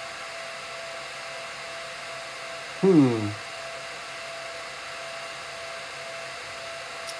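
Computer cooling fans running steadily, a hiss with a thin steady whine. A short falling vocal sound comes about three seconds in.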